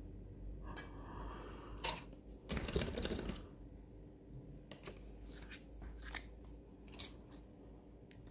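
Small tool clicks and scraping as an iPhone 12's screen is pried from its frame, with a louder rough scraping noise lasting about a second, starting about two and a half seconds in.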